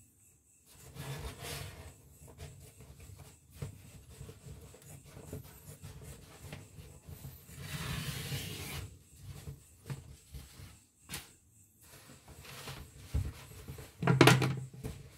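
Irregular rubbing and scraping of objects being handled, in several noisy bursts with scattered clicks between, the loudest one near the end.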